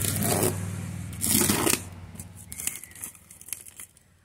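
Packing tape and plastic wrap on a cardboard carton being cut and ripped open with scissors: two loud tearing rasps in the first two seconds, then a few faint clicks and rustles.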